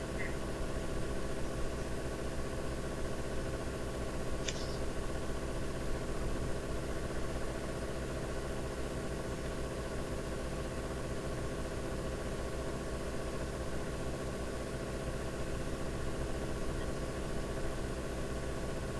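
Steady droning background hum, mechanical or electrical, with several steady tones in it, and one brief high click about four and a half seconds in.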